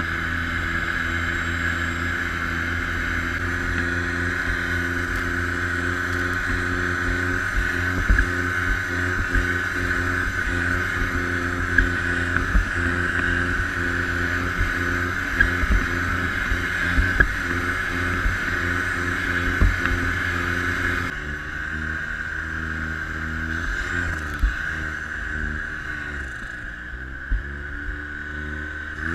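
Snowmobile engine and track running at a steady cruising speed, a steady high whine sitting over the engine note, with a few short knocks. About three-quarters of the way through the throttle eases off: the sound drops and the engine pitch wavers, then it revs up again right at the end.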